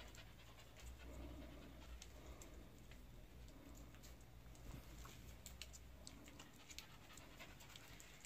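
Near silence: faint breathing close by, with a few tiny clicks scattered through it.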